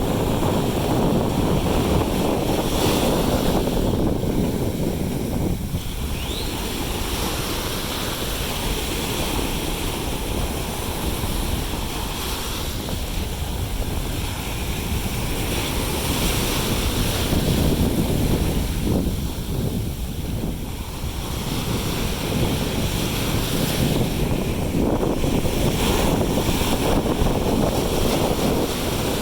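Heavy wind buffeting the microphone over rushing, splashing seawater from a moving jet ski, rising and falling in strength.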